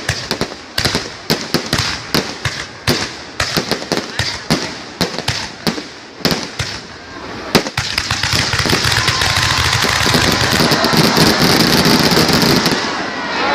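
Aerial fireworks going off: a rapid, irregular series of sharp bangs for the first half, ending in one heavier bang, then merging into a dense continuous rush of sound.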